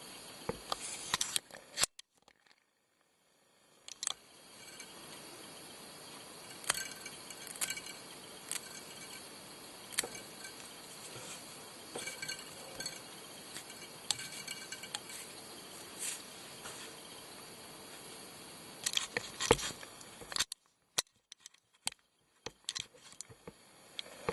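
Scattered small clicks and handling noises from fingers and tools working at a fly-tying vise, over a steady faint hiss. Clicks come thicker about a second in and again near the end, with short stretches of near silence between.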